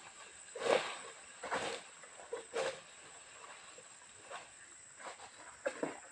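Steady high-pitched drone of insects, with short rasping sounds at irregular intervals, roughly one a second.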